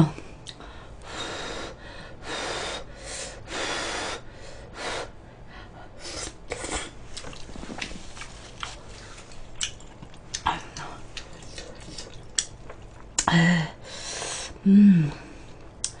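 Close-miked eating sounds of a person chewing, with breaths through the nose and scattered light clicks of chopsticks against dishes. Two short vocal sounds come near the end.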